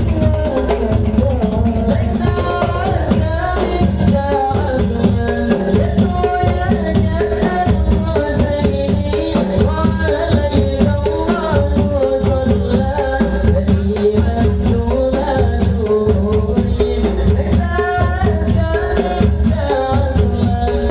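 Hadrah music: a group of rebana frame drums playing a fast, dense rhythm under a sung melody.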